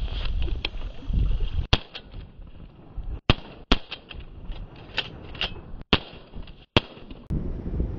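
Several shotgun shots in quick succession as geese are shot over decoys, fired with BB shells. Each blast is sharp and some are followed by a brief drop-out in the sound.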